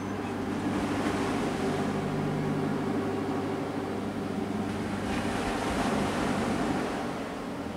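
A boat's engine running steadily, a low hum with a rushing haze over it. It grows louder in the first second or so and fades toward the end, as the boat passes.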